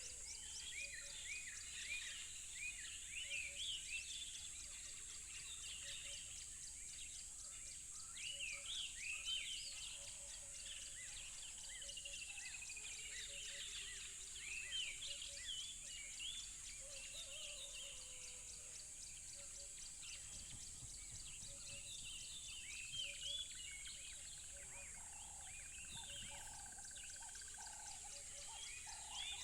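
Many songbirds chirping and singing, a busy overlapping chorus of short quick calls, over a steady high hiss. A soft low note repeats evenly underneath.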